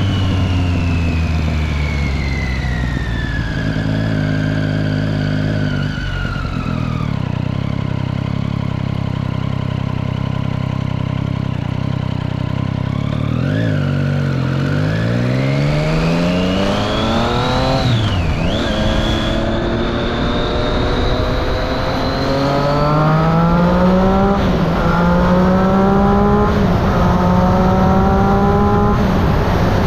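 Triumph Street Triple 675's three-cylinder engine running through a Remus Hypercone exhaust with its dB killer fitted. The engine note falls over the first several seconds, holds steady for a while, then rises with acceleration around the middle, and in the last third climbs and drops back several times in quick succession.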